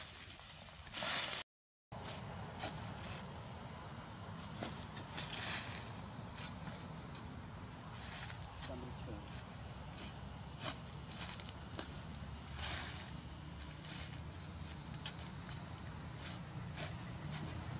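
Steady, high-pitched chorus of insects, with occasional crunches and scrapes in dry soil and fallen leaves from digging with a spade. The sound cuts out completely for a moment about a second and a half in.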